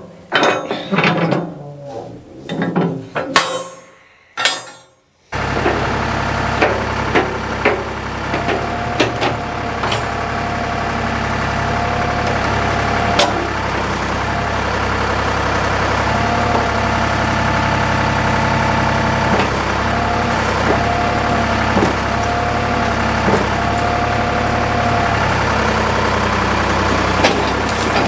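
Scattered clunks, then about five seconds in the diesel engine of a tractor or backhoe comes in abruptly and runs steadily, with an on-and-off whine and occasional knocks.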